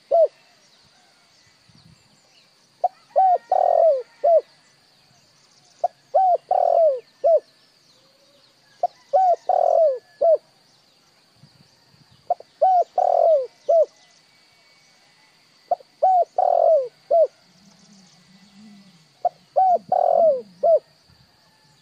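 Spotted dove cooing: a short phrase of several low coo notes, repeated about every three seconds, six times over. Faint chirps of small birds and a steady high hiss run behind it.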